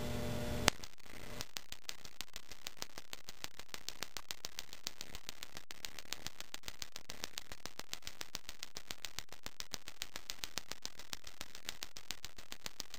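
Electronic gas grill igniter sparking over and over against a metal tin, a sharp snap about five or six times a second after a single click under a second in. This is a hot-restart attempt on a 70 W high-pressure sodium lamp that is still too hot to restrike.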